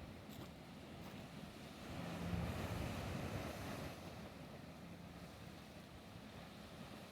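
Faint drone of a passing speed boat's engine over the sea, swelling for about two seconds near the middle and then fading, with wind buffeting the microphone.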